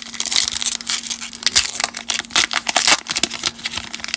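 Plastic wrapper of a Topps baseball card pack being torn open and peeled back off the cards: a quick, irregular run of crinkling and crackling.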